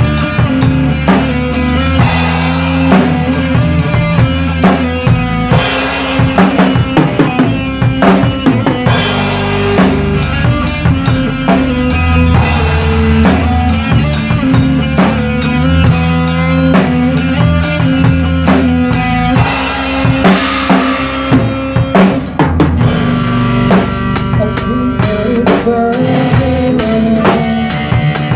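A drum kit played along with backing music: kick drum, snare and cymbals struck in a dense, driving beat over sustained bass tones.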